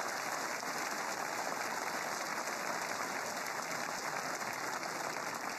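Snooker arena audience applauding steadily, a long unbroken round of clapping for a completed break of 132.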